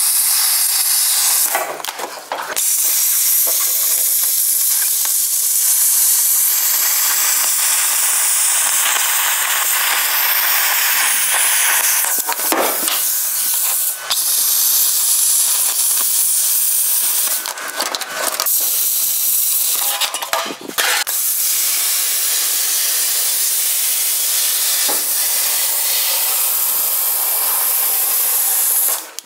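Plasma cutter cutting through car body metal: a loud, steady hiss that breaks off briefly several times as the cut stops and restarts.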